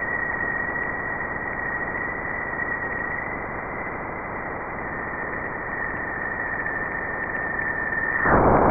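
Spacecraft radio and plasma-wave data played back as sound: a steady hiss with a thin whistling tone that slowly sinks in pitch. About eight seconds in the tone stops abruptly and the hiss jumps louder.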